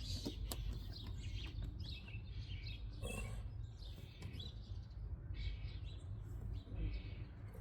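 Birds chirping in short scattered calls over a low steady rumble, with a few faint clicks near the start.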